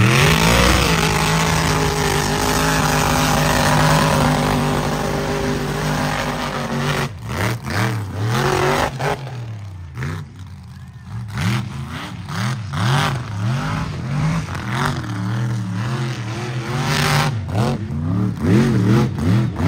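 Mega truck's engine running hard at high revs for about seven seconds, then revved up and down over and over in quick throttle blips.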